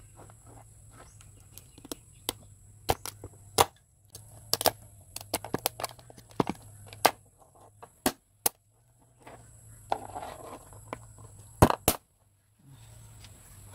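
Irregular sharp cracks and snaps of crab shells being pried open and broken apart by hand, dozens of crisp clicks at uneven intervals.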